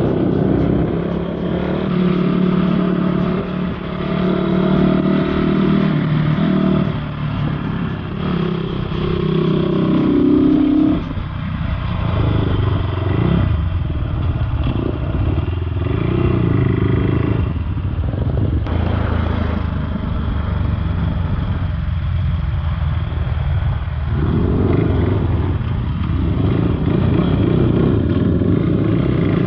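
Off-road motorcycle engine running under load on a rough trail, its pitch rising and falling as the throttle is opened and closed, with a sharp drop about eleven seconds in.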